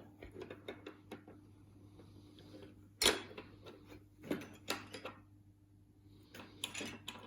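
Scattered small metal clicks and taps of lock picks and tools being handled, the sharpest about three seconds in, over a steady low electrical hum.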